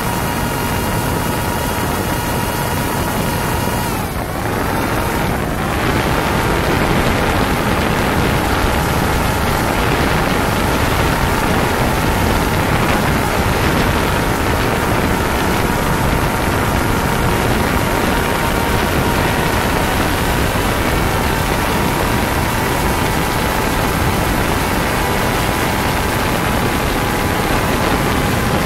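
Quadcopter drone's electric motors and propellers whirring close by, a steady whine over a rushing noise. About four seconds in, the pitch dips twice and comes back up, and after that the whirring runs a little louder.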